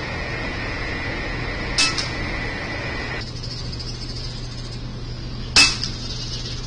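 .25-calibre air rifle fired twice, each shot a sharp crack with a brief ring, about four seconds apart; the second is louder. Under the shots runs a steady low machinery hum, and a high whine cuts off suddenly about three seconds in.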